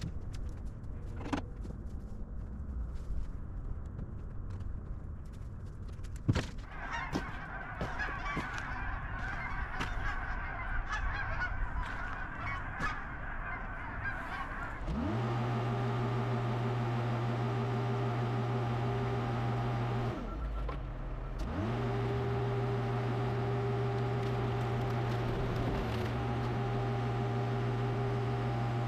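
Forklift working in the scrapyard. First clicks and metal rattling, then from about halfway a louder steady drone with a quick rise in pitch at its start. The drone cuts out for about a second and rises back.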